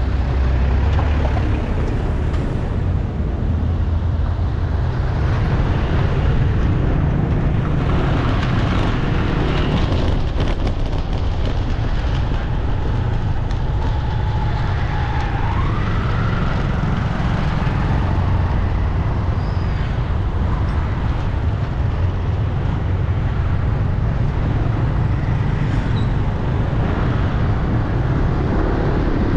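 Steady city street traffic, a continuous rumble of passing cars and motorbikes, with a brief rising whine about halfway through.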